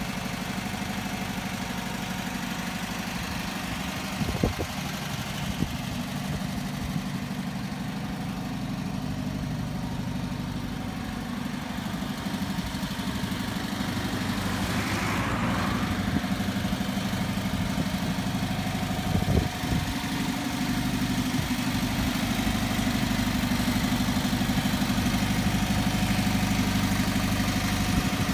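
Volkswagen T2a Westfalia camper's rear-mounted air-cooled flat-four engine idling steadily, growing louder in the second half. Two brief knocks come about four seconds in and again near twenty seconds.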